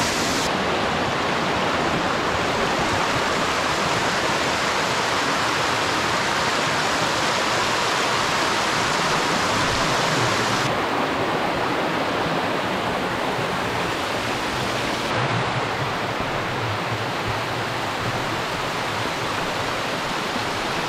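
Steady rush of a small waterfall and creek cascades pouring over rock ledges. Its tone shifts abruptly three times, about half a second in and around ten and fifteen seconds in.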